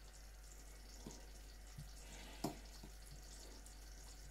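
Faint taps and clicks of metal kitchen tongs against a bowl as a chicken piece is rolled in seasoned corn flour: a few small knocks, the loudest about halfway through, over a low steady hum.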